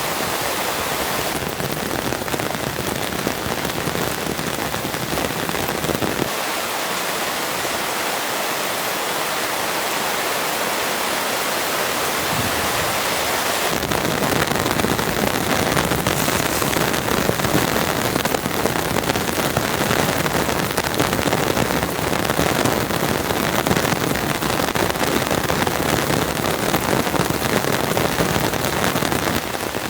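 Steady heavy rain, a dense even hiss that changes character abruptly a few times, growing a little louder and fuller about fourteen seconds in.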